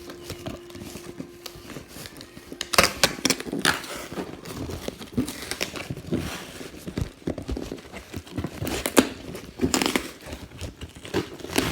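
Parcel packaging crinkling and tearing as it is opened by hand, with irregular rustling and sharp handling clicks. A faint steady low hum stops about three seconds in, as the rustling begins.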